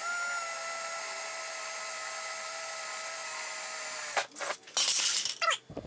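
Cordless DeWalt drill motor spinning up and running at a steady whine for about four seconds, then winding down and stopping, followed by two short bursts of noise.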